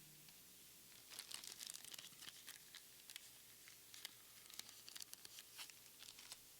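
Foil trading-card booster pack wrapper being torn open and crinkled, a faint run of sharp crackles starting about a second in.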